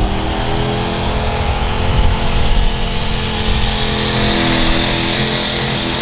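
Pro stock diesel pickup truck engine running hard at high revs under load while pulling the sled. A hiss grows stronger over the last two seconds.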